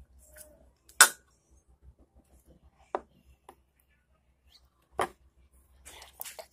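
Plastic slime containers being handled on a desk: three sharp clicking knocks about two seconds apart, the first the loudest, then a few softer taps and rustles near the end.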